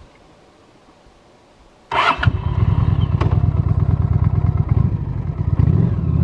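Honda Shadow's V-twin engine starting about two seconds in, catching at once and then running steadily.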